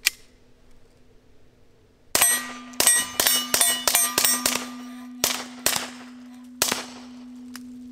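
A string of about ten suppressed .22 LR shots from a Walther PPK/S with an Odin Works Nav 22 suppressor, firing Remington Thunderbolt, quick at first and then more spaced out, each shot with the clang of a steel target. A steady ringing tone starts with the first shot and hangs on.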